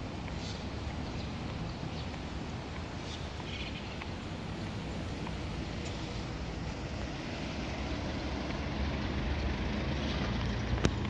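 Steady low rumble of road traffic, swelling over the last few seconds as a car draws near, with one sharp click near the end.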